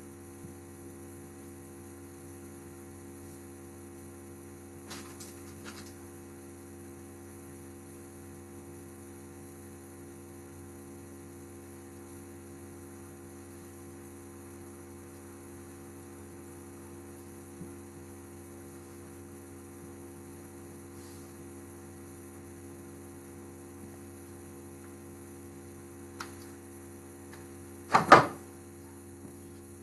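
Steady electrical mains hum, with a few faint clicks of high heels on a tiled floor and one loud knock near the end.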